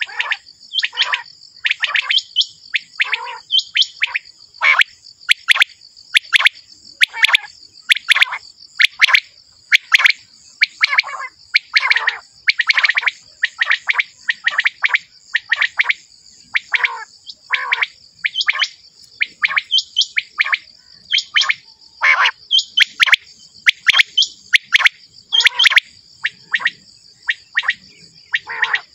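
Quail calling over and over, short sharp notes that fall steeply in pitch, about one or two a second, with a steady high hiss behind them.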